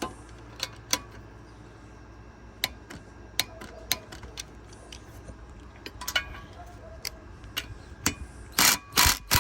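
Scattered clicks and knocks of tools being handled, then two short loud bursts near the end from a Hyper Tough 12 V brushed impact driver hammering a bolt during a torque test at about 50 foot-pounds.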